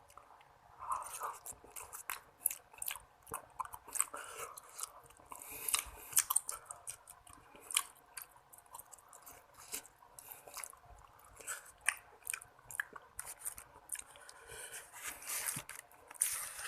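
Close-miked chewing and slurping of seblak: wet, irregular mouth smacks and soft crunches.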